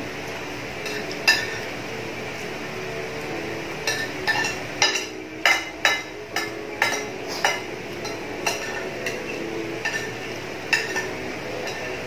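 Metal spoon clinking and scraping against dishes while eating, with about fifteen sharp ringing clicks that come thickest in the middle.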